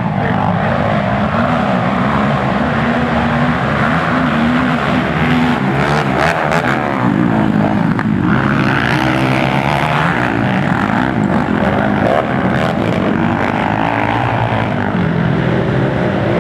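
Several racing ATV (quad) engines running together around a dirt motocross track, revving up and down with overlapping pitches that rise and fall.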